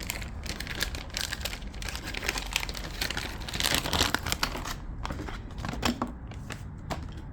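Crinkling and rustling of plastic packaging being handled, with small clicks, as a new key is taken out.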